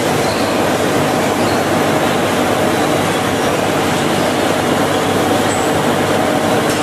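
Plywood edge-trimming saw machine running steadily: an even mechanical noise with a constant hum beneath it and a brief click near the end.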